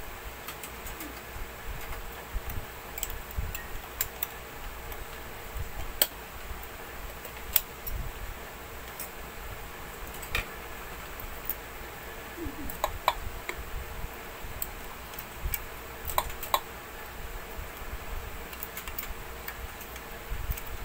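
Scattered sharp clicks and taps of a screwdriver and small metal parts being handled at an overlock sewing machine, over a faint steady hum.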